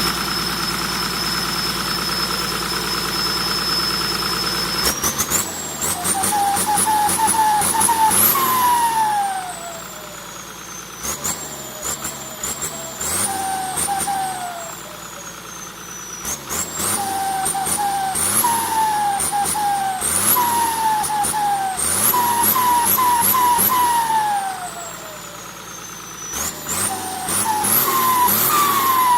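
Holset H1C turbocharger whistling on a running engine: a steady high whine at first, then the engine is blipped repeatedly so the turbo whistle climbs in steps, each bout ending in a long falling whistle as the turbo spools down. This happens several times.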